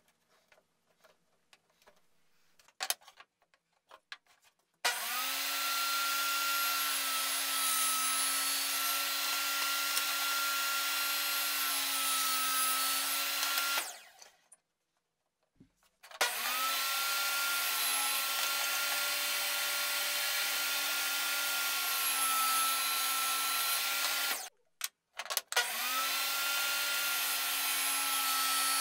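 Makita benchtop table saw running in three separate stretches, each starting as the motor spins up to a steady whine, while thin wooden panels are ripped to width against the fence.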